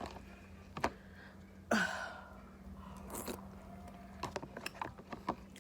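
Close-up chewing of food, with small wet mouth clicks and smacks. There is a louder short mouth sound just under two seconds in and a sharper one a little past three seconds.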